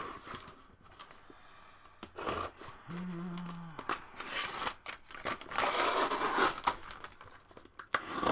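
A cardboard shipping box being cut open with a utility knife: blade slitting the tape and cardboard, with scraping, tearing and crinkling in irregular bursts that are busiest past the middle.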